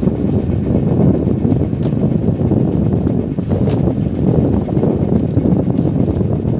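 Strong wind blowing across the microphone: a loud, unsteady low rumble.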